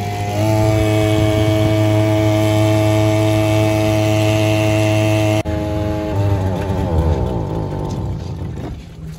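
Sican 3.6 HP 52cc two-stroke outboard motor running steadily at speed, its pitch stepping up slightly about half a second in. After a cut about five seconds in, an engine keeps running with an unsteady, wavering pitch.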